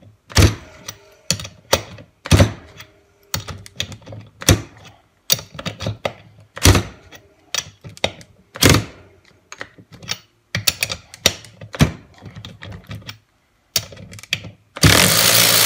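12-volt cordless ratchet at a nut torqued to 60 ft-lb: a long, irregular run of sharp metallic clicks and clacks as the socket is pulled off, turned and refitted and the ratchet is triggered against the nut, which it can't turn. Near the end the motor runs loudly for about a second as the nut finally breaks loose.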